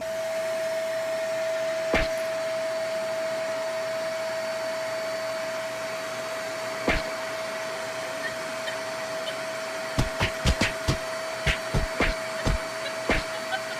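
A small electric appliance motor running steadily with a constant whine, like a vacuum cleaner or hair dryer. Sharp knocks come once about two seconds in and again about seven seconds in, then a quick run of them near the end.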